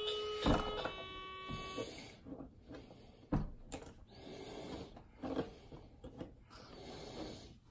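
A baby activity center's electronic toy tune ends with a few held notes stepping down in pitch, fading out about two seconds in. After it come scattered plastic clicks and knocks as buttons on the tray are pressed and tapped.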